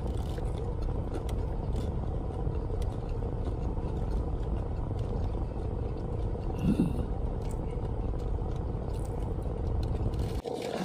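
Steady low rumble of a running car heard from inside the cabin, with quiet chewing of a mouthful of fried chicken sandwich. The rumble cuts off suddenly near the end.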